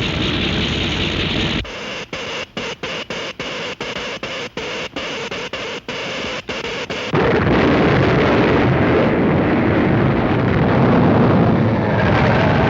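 Cartoon sound effects of an electric earthquake machine: a crackling electrical hiss that stutters on and off in quick dropouts, then, about seven seconds in, a louder continuous deep rumble of an earthquake.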